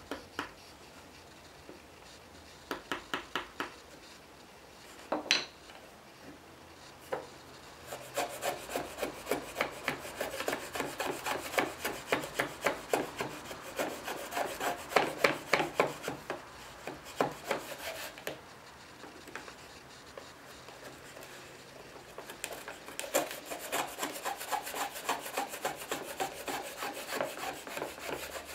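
Shop-built hand router plane cutting wood: its blade scrapes and shaves in quick short strokes, a few at a time early on, then long rapid runs with a pause of a few seconds in the middle.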